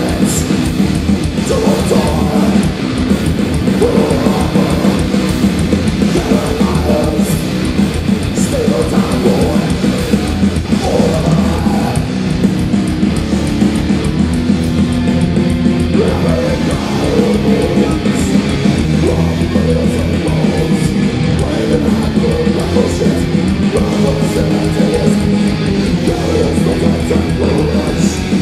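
Death metal band playing live and loud: heavily distorted electric guitars and bass in a dense, unbroken wall of sound, heard as a live recording from the crowd.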